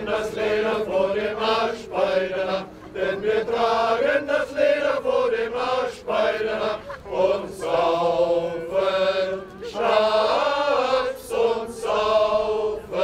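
A choir singing, in short phrases with brief dips between them.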